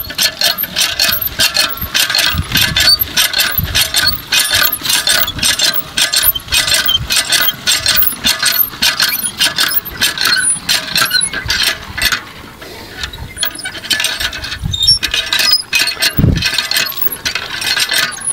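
Village hand pump being worked: its handle and lever joints squeak and clank in a quick, steady rhythm, stop briefly about twelve seconds in, then start again. A dull thump comes near the end.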